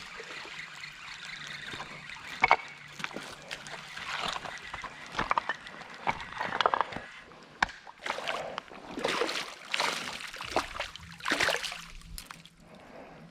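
Creek water splashing and sloshing in irregular bursts, with a sharp knock about two and a half seconds in.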